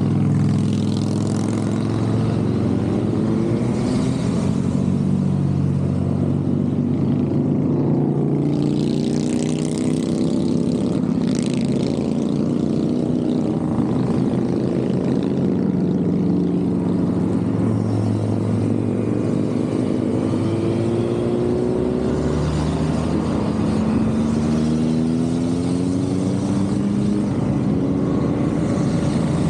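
A continuous stream of motorcycles riding past, many engines running at once, with engine notes rising and falling as individual bikes go by and rev.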